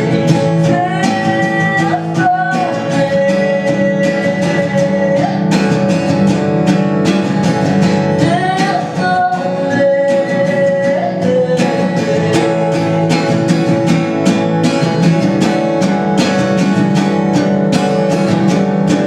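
Background song: strummed acoustic guitar with a singing voice over a steady beat.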